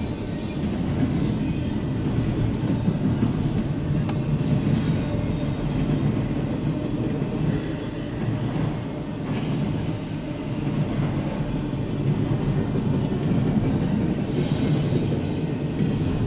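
Double-stack intermodal freight cars rolling past: a steady rumble of steel wheels on the rails. A brief high wheel squeal comes about ten seconds in.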